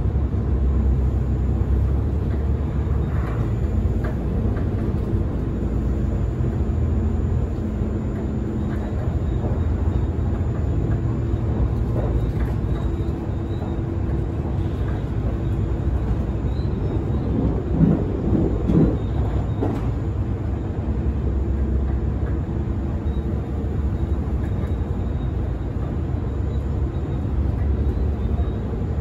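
Cabin noise inside a moving HC85 hybrid diesel express train: a steady low drone from the diesel engine-generator and running gear, with wheels rumbling on the rails. A brief louder wavering sound comes a little past the middle.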